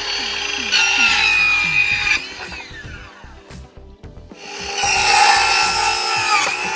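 Ryobi brushless cordless circular saw running and cutting twice: the motor's whine dips and the sound turns rougher as the blade bites, then falls away as the trigger is released and the blade coasts down, before the saw is spun up again for a second cut that winds down near the end.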